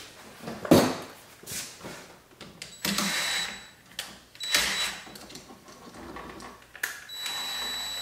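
Cordless DeWalt driver running in short bursts to tighten a side terminal screw on an electrical outlet: a steady motor whine about three seconds in, again briefly at about four and a half seconds, and longer near the end. A sharp click comes just under a second in.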